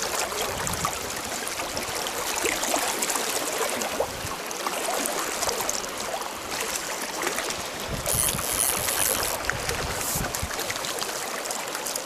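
Small stony river running steadily past, a continuous rush and trickle of shallow water, with a few low knocks about two-thirds of the way through.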